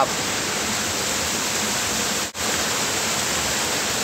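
Water from a small stream cascade rushing steadily into a pool, an even hiss that cuts out for an instant a little over two seconds in.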